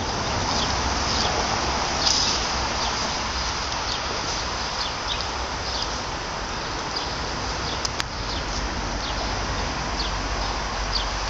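Steady outdoor background hiss, with short, high chirps of small birds scattered through it.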